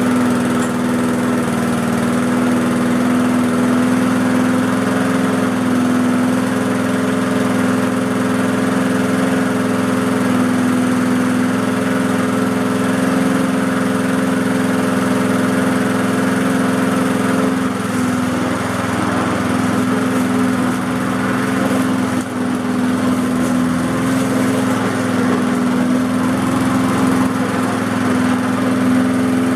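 Briggs & Stratton 3.5 hp single-cylinder four-stroke lawn mower engine, freshly serviced, running steadily at a constant speed just after being pull-started.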